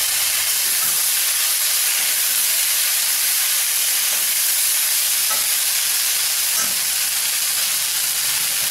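Sliced onion, carrot, capsicum and green peas sizzling steadily as they stir-fry in oil in a stainless steel kadai, with a few light clicks.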